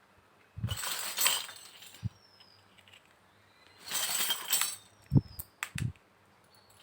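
Small hard pieces of a miniature toy kitchen set being handled. There are two short bursts of clinking and rattling, about a second in and about four seconds in, then two light taps near the end.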